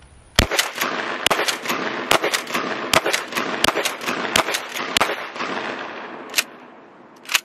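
A 12-gauge Mossberg 590 pump-action shotgun fired rapidly: about seven loud blasts in quick succession. Weaker clacks fall between the blasts, and rolling echo fills the gaps. The echo dies away, broken by two more sharp clacks near the end.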